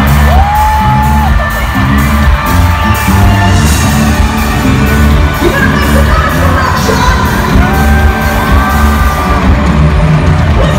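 Loud live pop music played over an arena PA, with a heavy bass beat and a regular drum pulse. The audience whoops over it.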